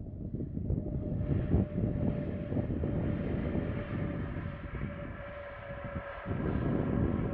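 Jet airliner engines during a landing, a steady whine with higher whining tones coming in about a second in, over a low rumble. Gusty wind buffets the microphone.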